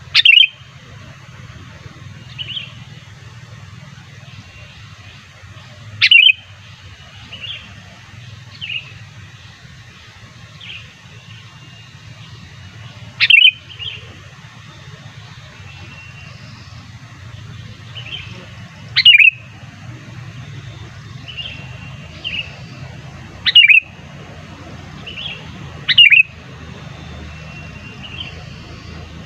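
Sooty-headed bulbul (kutilang) calls, played as a lure: short, sharp, falling chirps. About six loud ones are spaced a few seconds apart, with fainter chirps between them. A steady low hum runs underneath.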